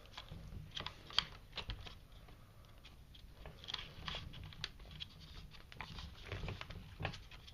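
Scattered light clicks and rattles of hands working the plastic battery hold-down on an SC10 RC truck's chassis, turning the posts to free the battery strap.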